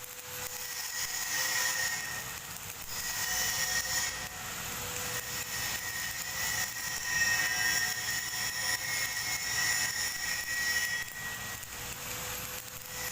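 Electric arc welding on a pipe: a steady crackling hiss with a thin whine under it, easing off briefly a few times.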